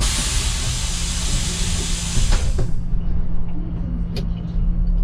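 City bus's pneumatic system letting out compressed air in a loud hiss that lasts about three seconds, over the steady hum of the idling engine. A few clicks follow, with one sharp click about four seconds in.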